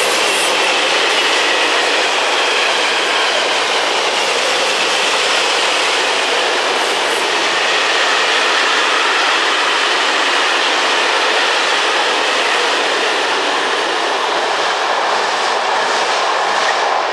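Zagkks bogie gas tank wagons of a freight train rolling past close by: a loud, steady rush of wheels on rail, with a faint high ringing tone above it.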